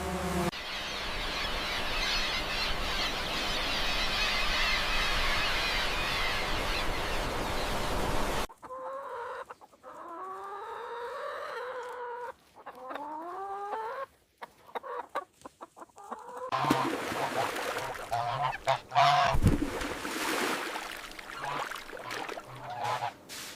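Farm fowl calling: a string of short calls that glide up and down in pitch, preceded by a steady rushing noise that cuts off abruptly and followed by scattered knocks and clicks.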